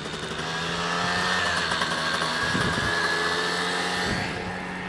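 Small moped scooter engine running at a steady speed, a constant buzzing tone over road and wind rush. It is louder through the middle and eases off after about four seconds.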